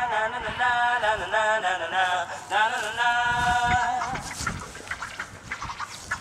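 A high, wavering voice held in long drawn-out notes with short breaks between them, giving way about four seconds in to faint scattered rustling and clicks.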